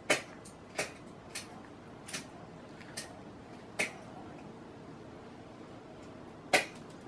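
A series of short, sharp clicks, about seven, at irregular intervals, the loudest near the start and another loud one a little before the end.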